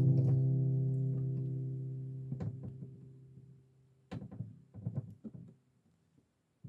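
The final chord of an acoustic guitar rings on and slowly dies away. After it comes a short run of soft knocks and rustles.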